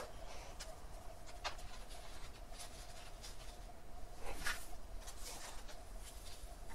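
Hands scratching and pressing gritty potting mix of soil, perlite and gravel around jade plants in a pot, in a few short scrapes, the loudest about four and a half seconds in. A faint steady hum runs underneath.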